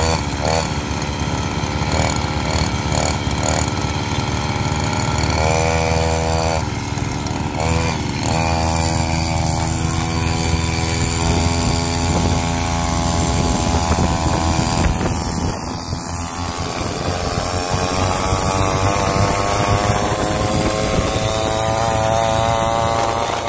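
Small petrol engine of a homemade wooden-frame motorcycle, first revved in short repeated blips, then pulling away and running under load, its pitch rising steadily in the last several seconds as it speeds up.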